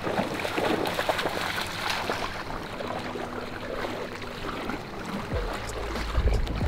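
Water lapping and splashing against the hull of a small aluminium boat. A low rumble comes in near the end.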